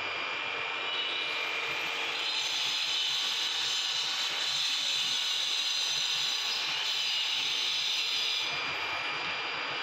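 A steady mechanical whir with a hiss, which grows louder about a second in and eases off near the end.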